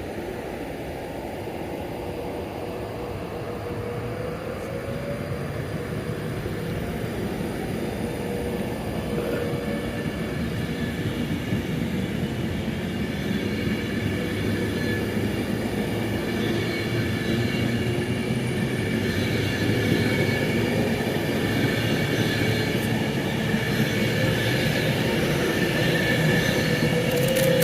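A train approaching, growing steadily louder, with a whine of several steady tones building from about ten seconds in and a lower tone gliding upward near the end.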